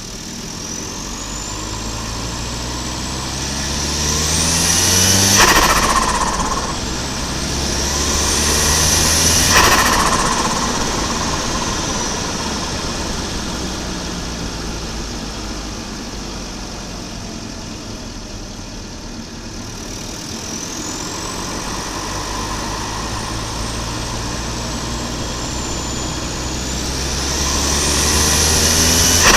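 Volvo 940 Turbo's turbocharged B230FT four-cylinder engine accelerating hard with a rising turbo whistle, then lifting off the throttle with turbo flutter (compressor surge). This happens twice, about five and ten seconds in, and again at the very end, with steadier cruising between.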